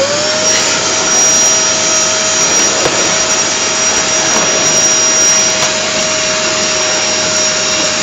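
Canister vacuum cleaner just switched on, its motor whine climbing and settling to a steady pitch in the first half second, then running steadily and loudly with a high, thin whistle above the rushing air.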